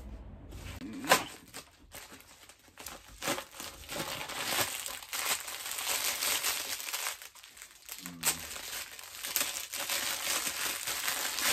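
Plastic bag crinkling and rustling as an individually bagged garment is handled and cut open with scissors, with a sharp click about a second in.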